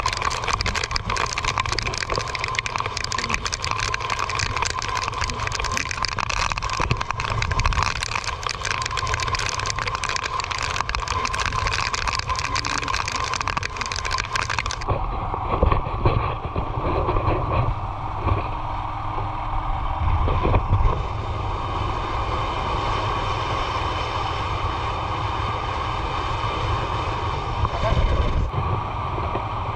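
Motorcycle running along the road with wind buffeting the microphone: a steady engine-and-wind rush. The tone changes abruptly about halfway through, when the high hiss drops away.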